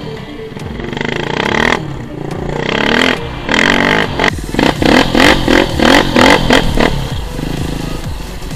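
Four-stroke single-cylinder engine of a KTM EXC-F 450 enduro bike revving up through the gears under hard acceleration. This is followed by a string of short, loud revs about three a second, and it eases off near the end.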